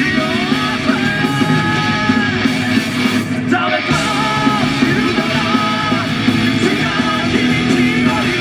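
Live heavy metal band playing with distorted electric guitars, bass and drums, and a singer belting long held notes over it. The band briefly drops out just past three seconds before coming back in.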